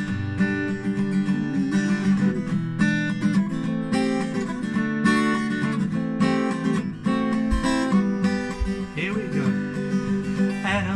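Acoustic guitar strummed in a steady rhythm, playing the chord introduction to a children's song.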